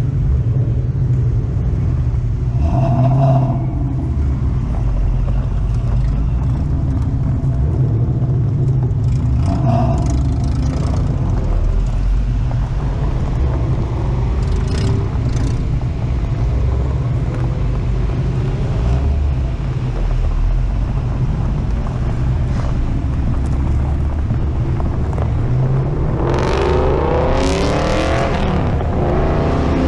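Ford Mustang engines running with a steady low rumble. Near the end an engine revs hard, its note sweeping up and down.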